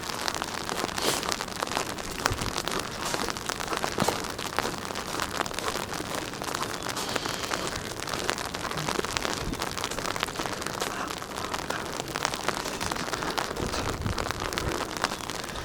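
Sleet and freezing rain falling, pattering steadily with many fine ticks on icy surfaces.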